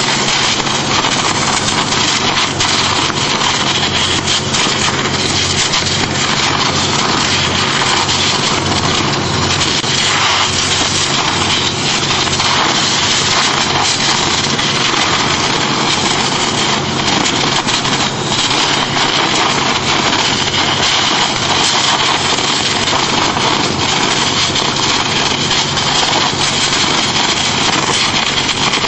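High-pressure water jet from a hand-held lance blasting concrete off steel reinforcing bars: a loud, unbroken hiss and spatter of water over a constant engine-driven pump drone.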